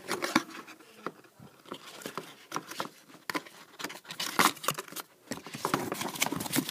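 Handling of e-reader packaging: irregular clicks, taps and light rustles of cardboard and plastic as accessories are taken out of the box, a little busier in the last second or so.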